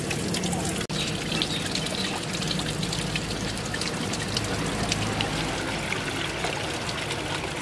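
Water pouring and splashing steadily from a temple fountain's statue spout, with a brief dropout in the sound just under a second in.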